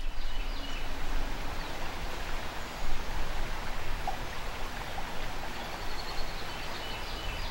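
Flowing river water, a steady rushing hiss, with a few faint high chirps near the start and again near the end.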